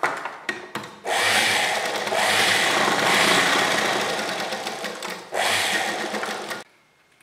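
Sewing machine stitching a seam: a few light clicks as it starts, then a steady run of about four seconds, a brief break, and another second of stitching that stops abruptly.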